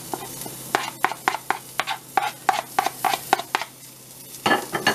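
Plastic slotted spoon scraping diced onion off a plastic cutting board into a pan of toasting long-grain rice and stirring it in: quick scraping strokes, about four a second, that die away a little past halfway, with two more near the end.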